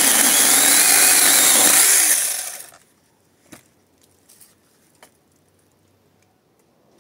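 Cordless brushless mini chainsaw cutting through a branch: the motor's whine shifts in pitch as the chain bites, then the saw is released and winds down about two and a half seconds in. A few light knocks follow.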